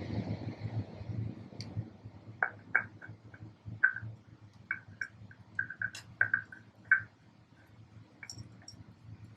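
A rushing noise fades out over the first two seconds. Then come about a dozen short, light clicks and squeaks at irregular spacing, from hands working a new oil filter and oil, over a low steady hum.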